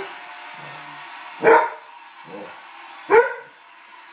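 A red setter barking at a balloon: two sharp barks, about a second and a half in and again about three seconds in.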